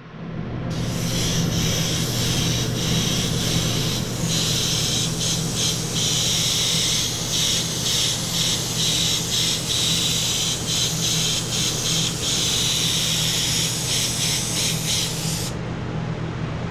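Gravity-feed airbrush with a large 0.5 mm nozzle spraying metallic flake paint: a steady hiss of air that starts about a second in and stops about a second before the end, with several short breaks as the trigger is let off and pressed again. A steady low hum runs underneath.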